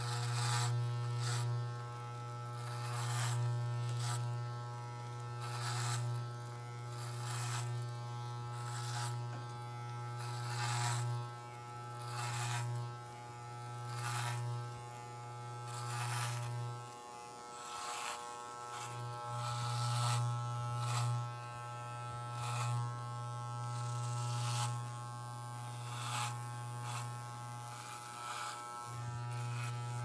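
Electric razor buzzing steadily as it cuts hair, with short hissy strokes about once a second as the blades pass through the hair. The buzz drops away for a couple of seconds a little over halfway through, and again briefly near the end.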